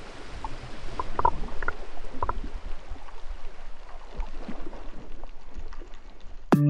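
Water sloshing and gurgling around a camera at the water's surface: a low rumble with scattered short bubbly blips, growing louder. Near the end a guitar-led music track comes in sharply.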